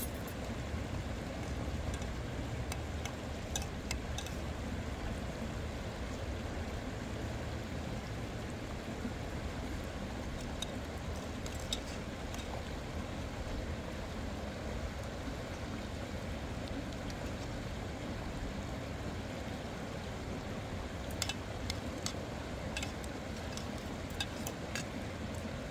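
Steady rushing noise with no words, dotted with a few sharp clicks: a handful about three seconds in, a couple near the middle and a cluster near the end.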